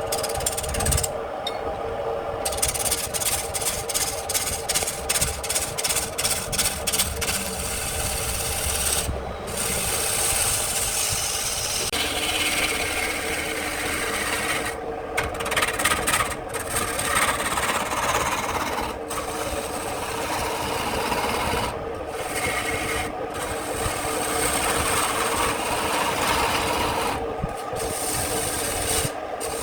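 A turning tool scraping and cutting wood spinning on a wood lathe, over the lathe's steady hum. There is a rapid, even ticking for the first several seconds, and the cutting noise stops briefly several times as the tool comes off the wood.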